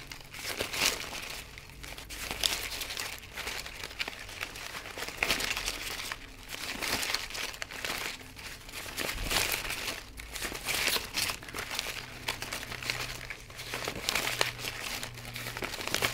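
Florist ribbon rustling and crinkling in uneven bursts as its loops are pulled and twisted by hand to fluff out a pom pom bow.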